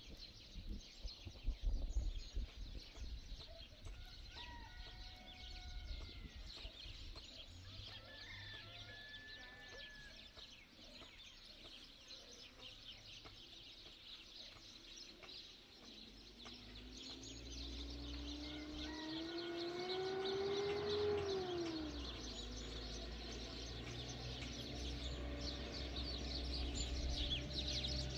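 Birds calling outdoors: short chirps and whistles, then a long call that rises and falls in pitch.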